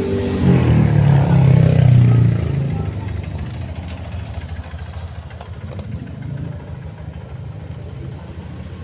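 A motor vehicle's engine running, swelling to its loudest about one to two seconds in and then fading away, as of a vehicle going past.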